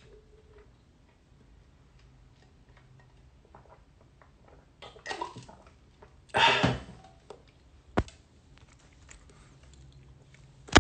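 Quiet small-room tone broken by a few short noises of a person eating a fried chicken sandwich and handling it close to a phone microphone. The loudest is a brief noise about six and a half seconds in, and there is a sharp click about eight seconds in.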